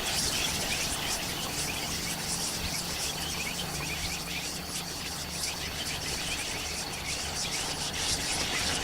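Night chorus of many small chirping animals, with short calls overlapping continuously. A low steady hum sits underneath and fades somewhat after the middle.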